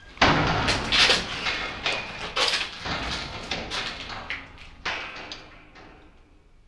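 Fabric rustling and scuffing as a white coat is handled and a man shifts and sits up on a bench: a run of rough rustles, loudest in the first few seconds and fading away toward the end.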